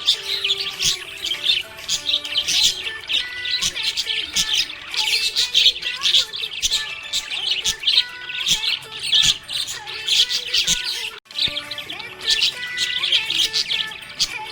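Budgerigars chirping and warbling in a dense, continuous chatter of rapid high chirps. The chatter breaks off for a moment about 11 seconds in.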